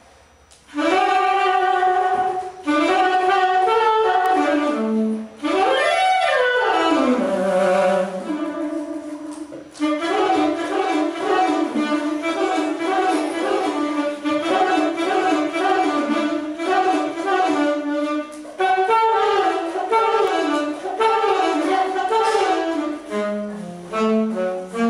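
Solo saxophone improvising a jazz melody, played live in a room: phrases of quick notes broken by short pauses for breath, a fast run up and back down about six seconds in, then long stretches of rapid running notes.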